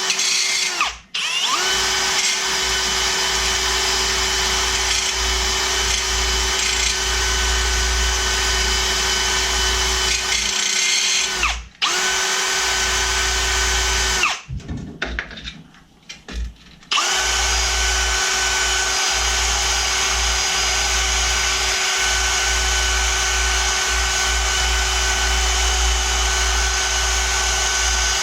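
Electric drill spinning a wire brush against the water heater tank's metal to clean around the soldered leak. It runs at a steady pitch in three long stretches, spinning up and winding down at each start and stop, with a short pause about twelve seconds in and a longer one a few seconds later.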